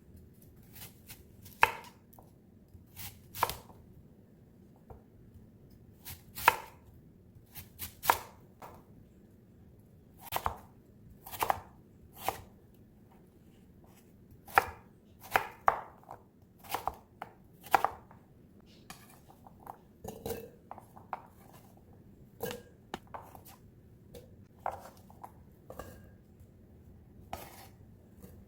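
Knife chopping on a cutting board: single sharp strokes at irregular intervals, about one a second, with brief pauses between runs.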